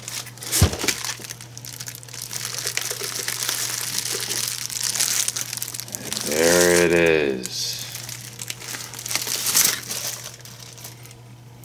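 Bubble wrap crinkling and rustling as it is handled and pulled off a boxed electronic panel. There is a sharp knock just after the start and a short pitched sound about halfway through.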